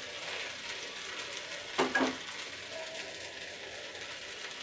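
Rice, whole spices and freshly added moong dal sizzling steadily as they fry in a hot cooking pot, with a short, louder sound about two seconds in.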